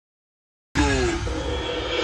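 Soundtrack music starting suddenly under a second in, opening with a falling sweep and then settling into held tones.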